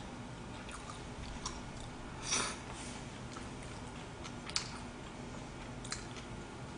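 A person chewing food with the mouth close to the microphone: soft, scattered mouth clicks and smacks, with one louder short smack about two and a half seconds in.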